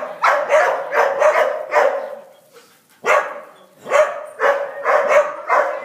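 A dog barking in rapid series, two to three barks a second, with a pause of about a second midway before the barking starts again.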